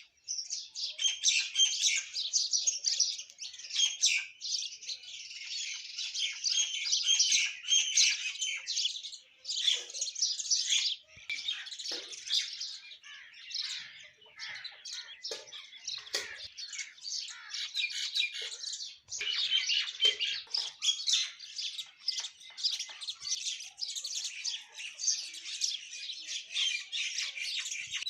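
A flock of mynas and sparrows chirping and chattering densely and without pause, with squawks mixed in. The chorus thins briefly twice, about a third and two-thirds of the way through.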